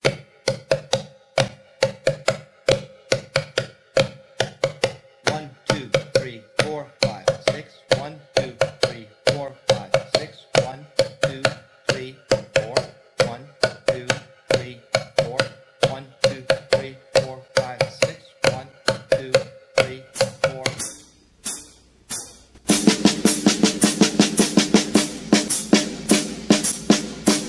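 Drum kit playing a polyrhythm exercise: a long run of evenly spaced drum strokes over a steady ringing drum pitch. After a short pause about 21 seconds in, the playing comes back louder and fuller, with more low drum sound.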